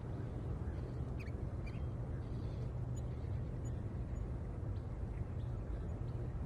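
Steady low rumble with a few faint, brief chirps about a second in.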